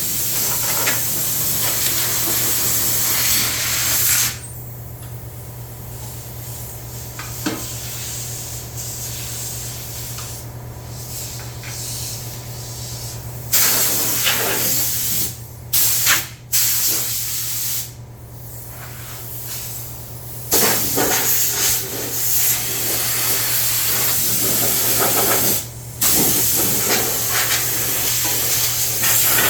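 High-pressure spray hissing in long blasts, loudest for the first few seconds, again around the middle and from about two-thirds of the way in, with quieter hissing between, over a steady low hum.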